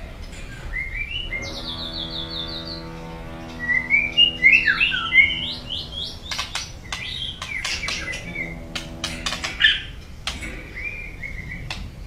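White-rumped shama singing: varied whistled phrases and sliding notes mixed with sharp clicking calls, loudest about four to five seconds in, over a steady low hum.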